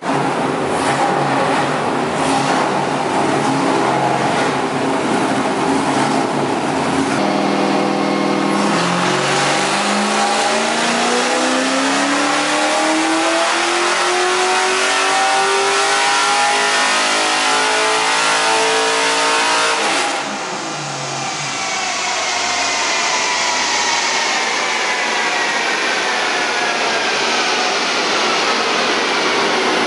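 LS1 V8 in a BMW E46 drift car doing a full-throttle pull on a chassis dyno: the engine runs at a steady speed, then its revs climb steadily for about twelve seconds. About twenty seconds in the driver lifts off, and the engine and the spinning dyno rollers wind down with a falling whine.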